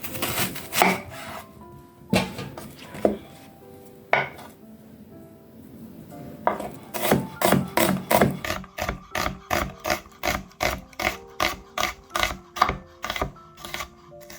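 Kitchen knife chopping on a wooden cutting board, a few scattered cuts at first and then a steady run of about three chops a second from the middle on. Background music plays underneath.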